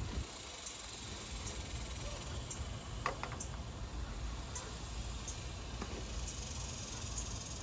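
Outdoor ambience with a low steady rumble and a faint high insect chirp repeating about once a second. About three seconds in comes a short clatter of things being shifted around inside a metal dumpster.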